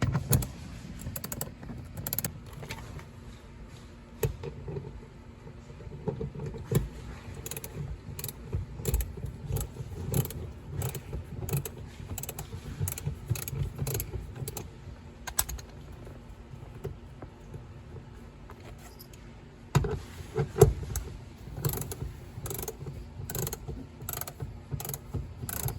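Ratcheting torque wrench clicking in irregular runs as a bolt is turned into the seat-belt anchor's threaded hole, easing off for a few seconds past the middle and then picking up again.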